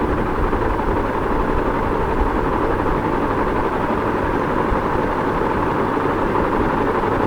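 Ceiling fan running steadily: an even, continuous rushing hum with no change in speed.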